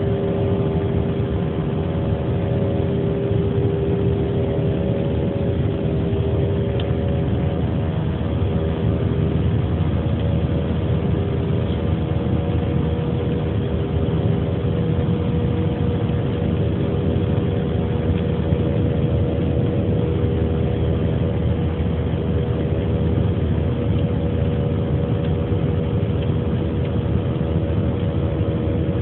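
Turbofan engine and airflow noise heard inside an Airbus A320-family airliner's cabin during the climb after takeoff: a steady low rumble with a few constant hum tones over it.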